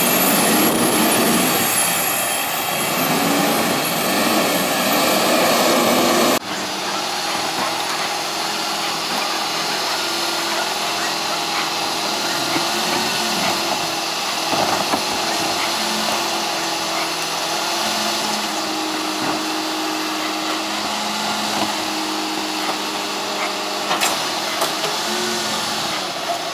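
Diesel rear-loader garbage truck running. For the first six seconds the engine works hard and loud. It then cuts abruptly to a steadier, quieter running with a few knocks as recycling carts are tipped into the rear hopper.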